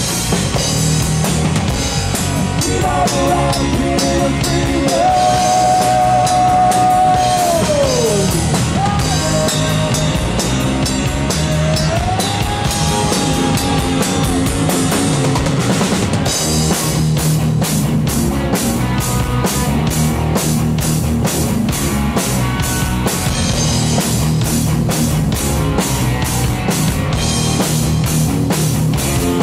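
Live rock band (electric guitar, bass guitar and drum kit) playing an instrumental passage. The lead guitar holds long, bent notes with a falling slide in the first half, and from about halfway the drums play with steady, evenly spaced cymbal strokes.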